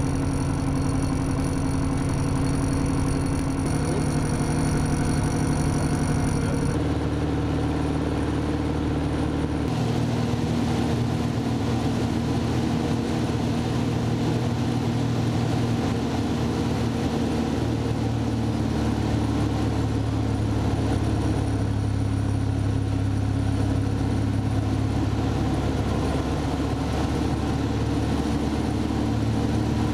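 Light aircraft's piston engine and propeller running steadily through the takeoff and climb, heard from inside the cockpit. The tone shifts about seven seconds in and again about ten seconds in.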